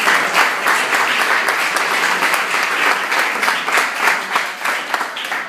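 Audience applauding: many hands clapping densely, thinning a little near the end.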